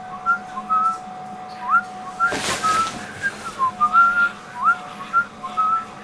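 A whistled tune of short notes, several sliding quickly upward, over a steady held tone, with a brief whoosh about two and a half seconds in.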